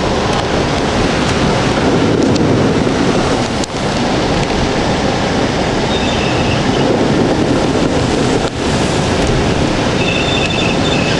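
Steady loud rush of heavy rain and road spray on a car driving through standing water, heard inside the cabin.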